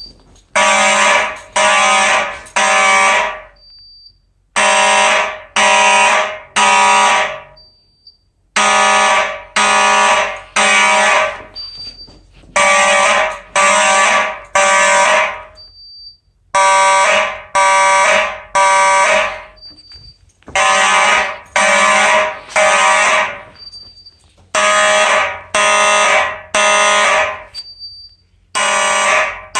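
Several electromechanical Simplex fire alarm horns sounding together in the temporal-3 evacuation pattern: three half-second buzzing blasts, then a pause, repeating about every four seconds. A short high-pitched tone sounds in each pause.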